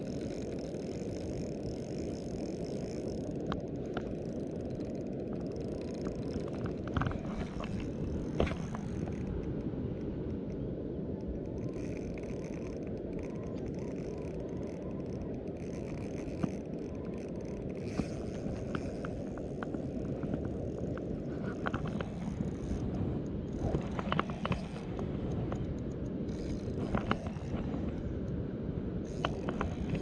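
A spinning reel clicking and ticking in short scattered bursts as it is cranked against a hooked sturgeon, over a steady low rushing background.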